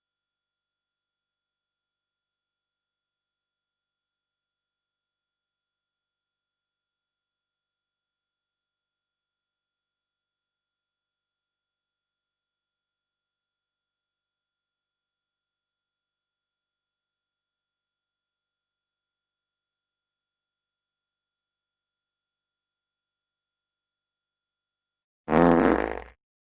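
A loud, steady, very high-pitched electronic sine tone held unchanged for about 25 seconds, then cut off abruptly. Near the end, a short fart sound effect.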